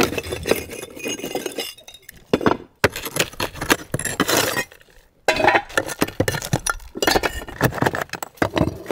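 Old flat concrete roof tiles being pried up and broken with a steel pry bar during tear-off: repeated sharp clinks, cracks and scraping of concrete on concrete, with two brief pauses.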